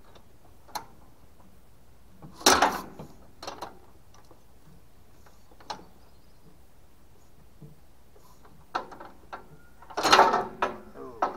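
Metallic clanks and rattles from hand-cranking the pony motor on a 1936 Caterpillar RD6 dozer: a few separate knocks, with the loudest about two and a half seconds in and again near the end. The small gas motor does not catch and no engine runs.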